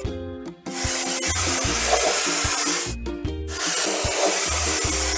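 Cartoon spray-paint sound effect: two long hisses of an aerosol spray, each about two seconds, with a short break between them, over cheerful children's background music with a steady beat.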